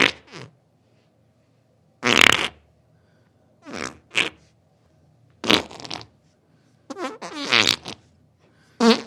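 Diarrhea sound effect: a string of about six short, sputtering fart-like bursts, each under a second long, with silence between them.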